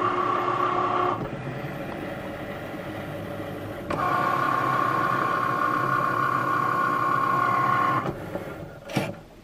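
Cricut Maker cutting machine's motors whining steadily as its rollers drive the cutting mat, once the cut is finished. The whine runs for about a second, drops away for about three seconds, then resumes for about four seconds, followed by a single short knock near the end.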